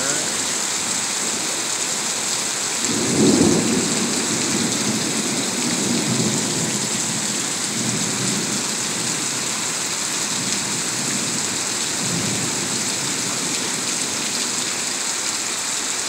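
Heavy rain pouring steadily during a thunderstorm. About three seconds in a clap of thunder breaks, the loudest moment, then rumbles on in rolling waves for some ten seconds before fading back under the rain.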